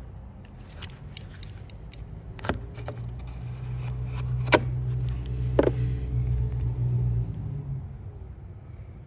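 A vehicle engine running nearby, a low hum that swells about two and a half seconds in and fades near the end. Over it, a few sharp clicks and knocks as a utility knife scores along the wooden door jamb.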